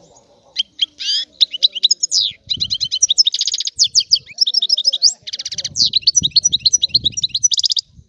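European goldfinch singing a long, fast twittering song of rapid trills and varied high notes. The song starts about half a second in and stops just before the end.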